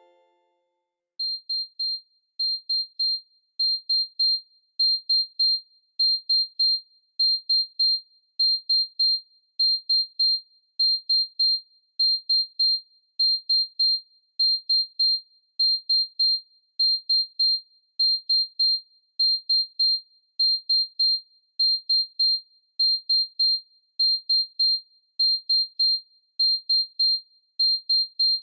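ZTE WeGo (S155) phone alert tone: a single high-pitched beep sounded in quick triplets. The triplet repeats about every 1.2 seconds and gets louder over the first few repeats.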